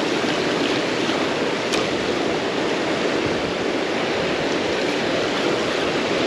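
Ocean surf washing in against the shore, a steady rush of water.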